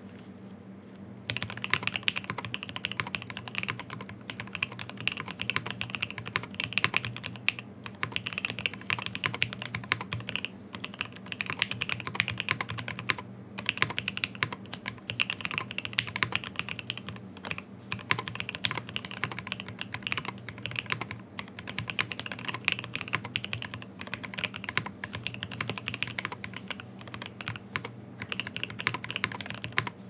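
Fast, continuous typing on a Typ65+ Prototype V2 custom mechanical keyboard: OP Black switches with MP68 springs on an FR4 plate, gasket and top mount, with GMK keycaps. The typing begins about a second in, over a faint steady low hum.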